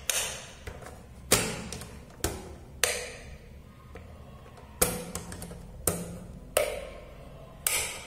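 Rocker switches on a modular electrical extension board clicking on and off, with a plug knocked into and pulled out of its sockets: about eight sharp separate clicks and knocks, the loudest a little over a second in.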